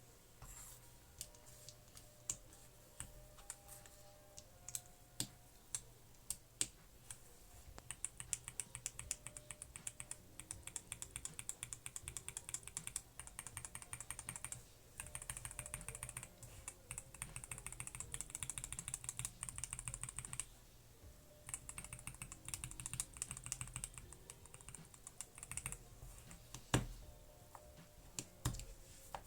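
Typing on a mechanical keyboard fitted with factory-lubed roller linear switches, whose stems run on ball bearings. Scattered single key presses come first; about eight seconds in, fast continuous typing begins and runs in three stretches separated by short pauses.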